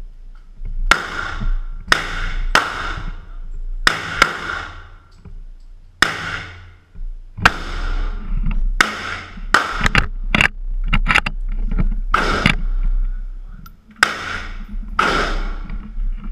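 Gunfire at an indoor shooting range: a string of sharp shots at irregular intervals, each with a short echo off the concrete, with a rapid cluster of shots in the middle.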